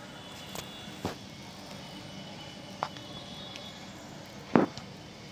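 Yellow heat-resistant tape being peeled off a phone's charging-port circuit board: a few small sharp clicks, the loudest about four and a half seconds in, over a steady faint hiss.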